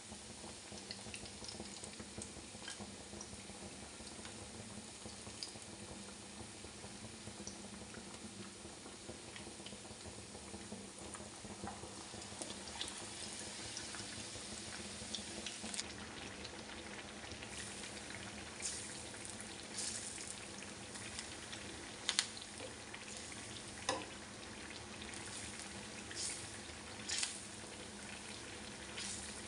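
Battered potato-and-bread sandwiches deep-frying in hot oil in a small pan: a steady sizzle, with sharper crackles and spatters coming more often in the second half.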